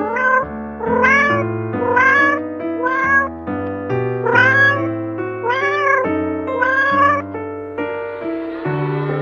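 A cat meowing about seven times in a row, each meow rising then falling in pitch, over background piano music. The meows stop near the end, leaving the music.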